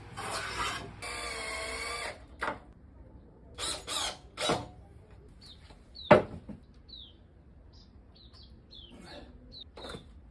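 Wood being handled: a second-long squeak, then a few knocks, and a sharp knock about six seconds in. After that, small birds chirp faintly with short, falling calls.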